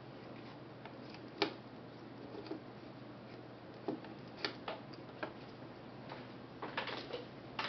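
A Zorki 4 35 mm rangefinder camera being worked by hand: a scattering of small, sharp mechanical clicks from its controls and shutter, the loudest about a second and a half in and a quick cluster near the end.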